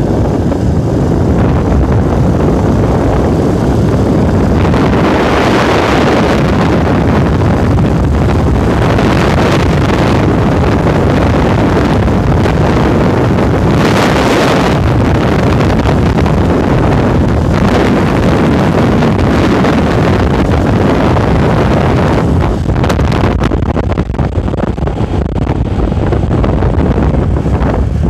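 Wind rushing over the microphone of a moving motorbike, mixed with road and engine noise. The wind swells louder a few times, most strongly about halfway through.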